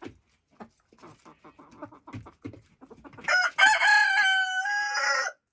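A rooster crowing close by: one loud crow about two seconds long, starting a little after three seconds in. Before it the chickens make soft clucks and small clicking sounds.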